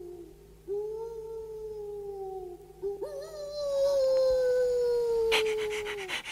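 Cartoon wolf howling: long drawn-out howls, each gliding slowly down in pitch, the last one starting higher and louder than the others. A sharp click comes near the end.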